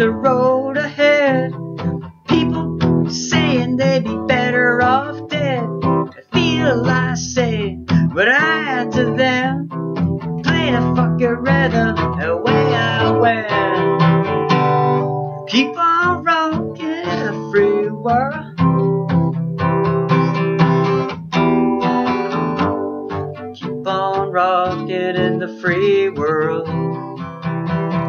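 Acoustic guitar played live, strummed and picked, with wordless singing wavering above it.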